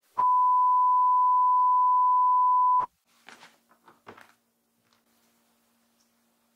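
A loud, steady electronic beep, one pitch held for about two and a half seconds and then cut off. It is an edited-in sound effect that goes with a 'loading' graphic. A few faint soft knocks and rustles follow it.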